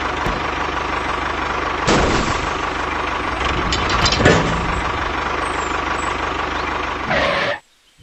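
A tractor engine running steadily, with two louder knocks about two and four seconds in. It cuts off suddenly shortly before the end.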